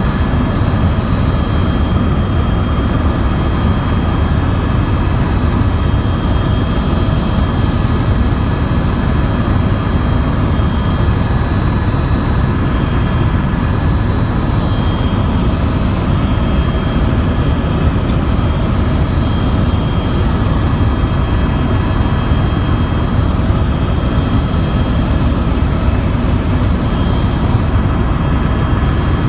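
Tour helicopter in flight: a steady, loud noise of rotor and turbine with a constant high whine over a deep rumble.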